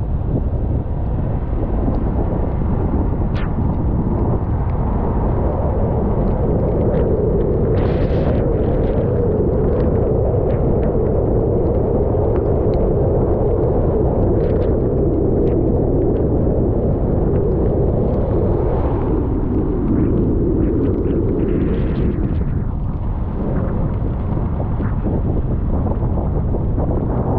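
A vehicle driving, with wind buffeting the microphone. A band of road noise builds about five seconds in and eases off near the end, with scattered short ticks.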